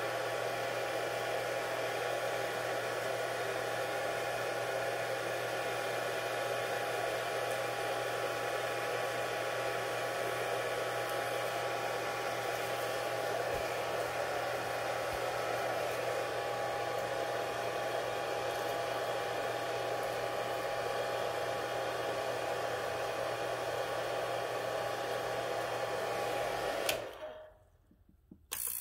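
A small electric appliance runs steadily with a hum and a rushing noise, then is switched off about 27 seconds in. A brief burst of the same sound comes right at the end.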